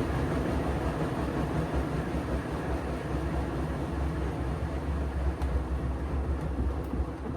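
Siemens washing machine on a fast spin, a heavy low rumble with the cabinet shaking and moving about on the floor. It eases off a little near the end.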